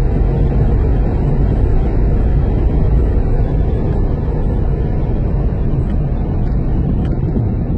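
Steady low rumble of a vehicle on the move, engine and ground noise, with no distinct events.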